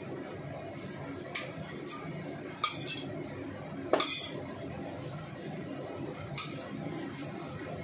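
Metal spatula and dishes clinking against a steel wok: four sharp clinks a second or more apart, the loudest about four seconds in, over a steady background hiss.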